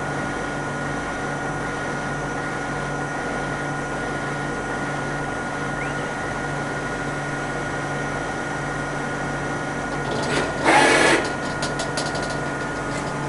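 Kira KPC-30 CNC vertical machining centre running a program: a steady machine hum with a constant whine. About ten and a half seconds in there is a brief loud burst of noise, followed by a few clicks.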